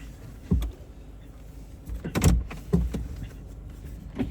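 Low steady rumble of a car cabin on the move, with a few short thumps and knocks: one about half a second in, a louder cluster a little past two seconds, and another near the end.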